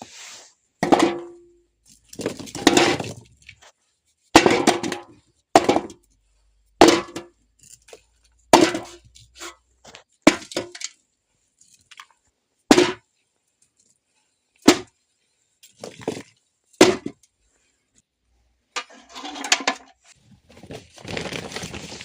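Firewood being broken up for a fire: about a dozen sharp cracks and knocks, a second or two apart, some with a brief ring, and a few longer crackling stretches.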